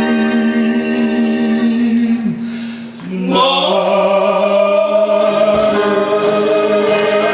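Live band music with singing: long held sung notes over the band, a brief drop about two and a half seconds in, then a new held chord.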